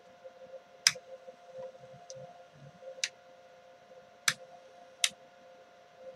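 Toggle switches wired to reverse a small electric motor, flipped with four sharp clicks at uneven spacing over a faint steady hum.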